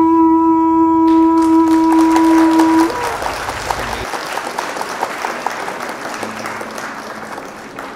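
A horn blast held steady on one pitch for about three seconds, then applause fading out.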